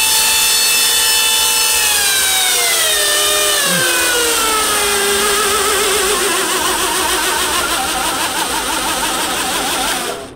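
A belt grinder's 2 hp AC motor, driven by a variable-frequency drive, whines steadily at speed. It then falls in pitch as it is slowed, and its tones waver and wobble at the lower speed before it cuts off near the end. The wobble goes with a vibration that the owner thinks comes from an unbalanced motor, though it could be the VFD.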